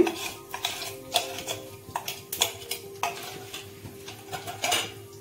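Ground moong dal frying in hot ghee in an iron kadhai, with irregular utensil knocks and clinks against the pan every second or so.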